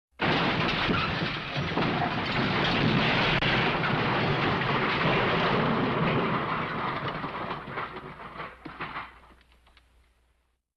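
Edited smash sound effect: a dense, crackling crash-like rumble that starts suddenly, holds loud for several seconds, then fades out over the last three seconds.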